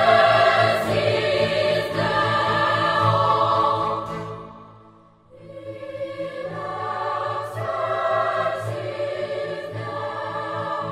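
Background choral music: a choir singing long, sustained chords. One phrase fades out about halfway through and a new phrase begins right after.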